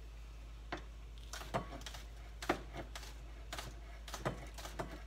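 Kitchen knife chopping scallions on a plastic cutting board: a string of sharp taps at an uneven pace, about two a second.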